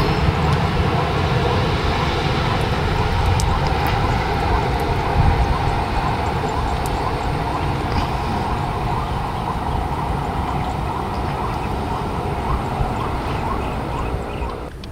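Jet airliner's engines running loud and steady as it moves along the runway, with a deep rumble, slowly fading.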